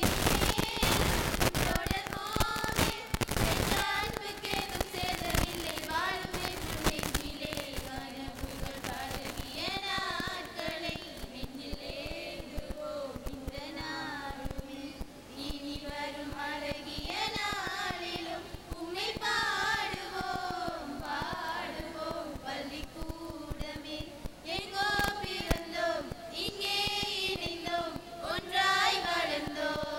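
A group of young women singing a song together without instruments, one melody line with long held, gliding notes, through stage microphones. Heavy crackling clicks run over the singing for about the first nine seconds.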